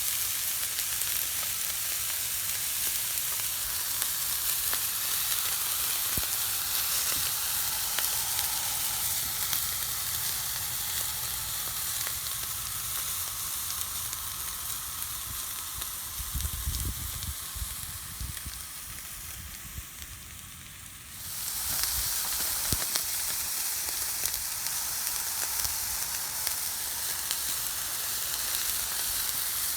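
Spencer ribeye steaks searing on a hot flat-top steel griddle, a steady hissing sizzle after being flipped. The sizzle thins out for a few seconds about two-thirds through, then comes back suddenly.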